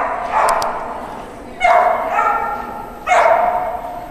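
A dog barking three times, about a second and a half apart, each bark loud and trailing off slowly.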